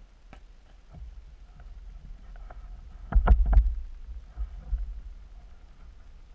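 Muffled low rumbling heard underwater through a camera's waterproof housing, with a cluster of knocks and clicks about three seconds in and a smaller bump a second later.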